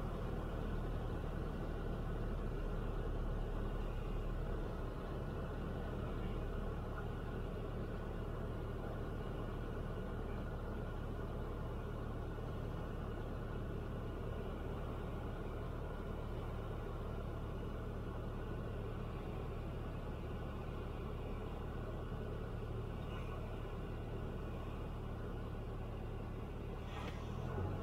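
Cessna 172's piston engine and propeller running steadily, a constant drone heard from inside the cockpit.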